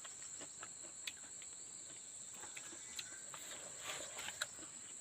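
Insects, crickets or similar, droning steadily in one high, even band, with a few faint scattered clicks and rustles.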